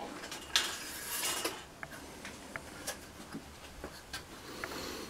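Handling noise from rummaging for a ruler: a brief rustling scrape about half a second in, then scattered small clicks and taps.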